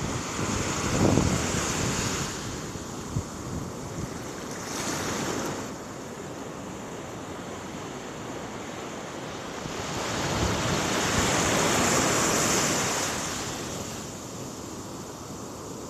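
Heavy ocean surf breaking on the beach, swelling loudest in the first couple of seconds and again about ten seconds in, with a quieter stretch between. Wind buffets the microphone.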